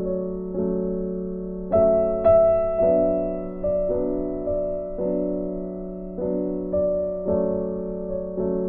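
Background music of soft piano chords, a new chord struck every half second to a second and left to ring and fade.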